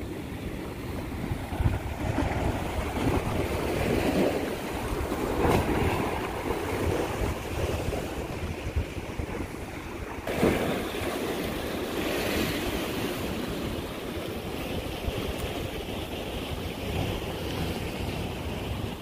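Sea waves surging and washing against rocks, swelling and falling several times, with wind rumbling on the microphone.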